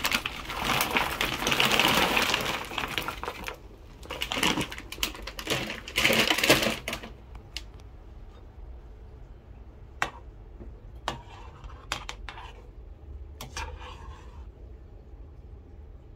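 Frozen dumplings poured from a plastic bag into a steel pot of boiling water: crinkling plastic and rattling, splashing dumplings in two spells, followed by a few separate sharp clicks.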